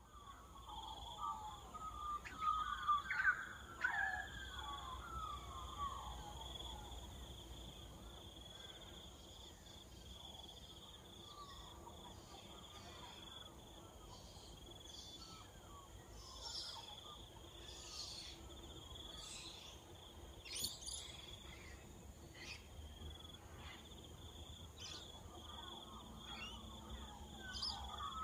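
Outdoor natural ambience: a steady, high-pitched insect drone, with birds calling in gliding, warbling phrases for the first several seconds and again near the end, and a few short chirps in between.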